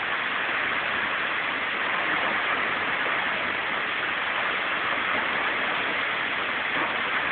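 Large waterfall rushing: a steady, even noise of falling water that does not change.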